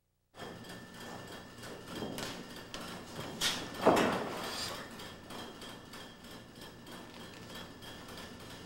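Footfalls and a few knocks on a wrestling ring's mat over steady room hiss, the loudest knocks coming about three and a half to four seconds in.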